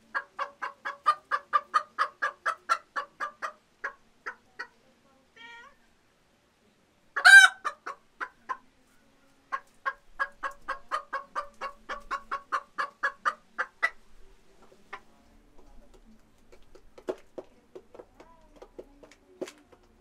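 Hen cackling: two long runs of quick, even clucks, about five a second, with one loud squawk between them. Softer, scattered clucks follow near the end.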